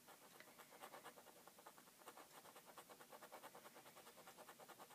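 Faint, rapid scraping: a flat knife with a rounded edge scraped in quick short strokes, about six or seven a second, over an old book to lift off a caked-on stain.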